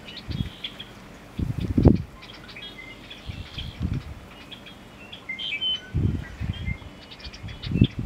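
Male American bittern giving its low, gulping pumping display call ("onk-a-chunk"), as short deep pulses in small groups: one near the start, two about two seconds in, and three more around six seconds in. Small birds chirp faintly and high above it.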